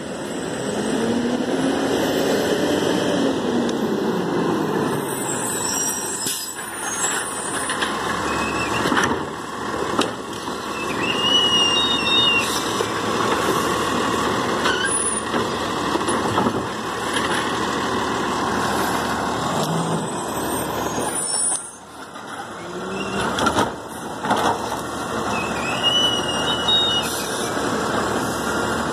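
Automated side-loader garbage truck pulling up and working: diesel engine running, with brief high brake squeals twice and several sharp knocks as its arm grabs and empties wheeled carts.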